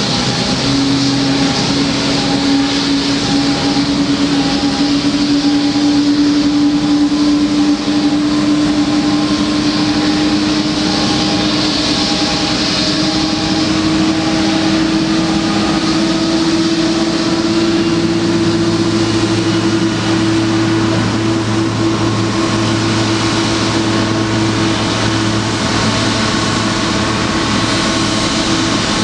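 Boeing 777-200 jet engines running during pushback, a steady whine that slowly rises in pitch, as when the engines are spooling up. A short beep repeats about once a second through the first half, and a deeper drone joins about two-thirds of the way in.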